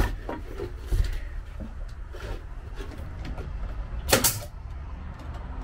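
Pneumatic nail gun firing once, sharply, about four seconds in, nailing a pine tongue-and-groove ceiling board. Before the shot there are a few light knocks and handling noises.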